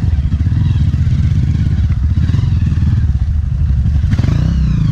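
Honda CRF trail bike's single-cylinder four-stroke engine running steadily while the bike is ridden.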